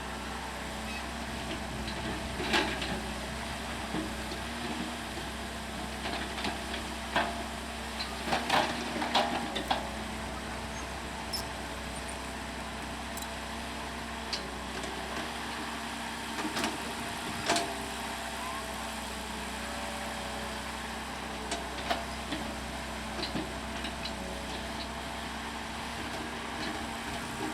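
CAT excavator's diesel engine running steadily, with sharp knocks and clatters now and then, a cluster of them around eight to nine seconds in.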